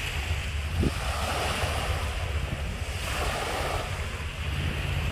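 Small waves washing and lapping onto a sandy shore, rising and easing. Wind buffets the microphone with a low rumble.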